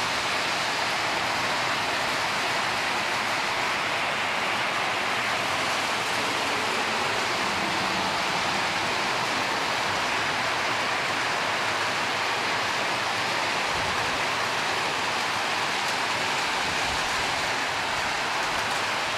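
Really heavy rain pelting down on a corrugated metal shelter roof: a loud, steady, even hiss that doesn't let up.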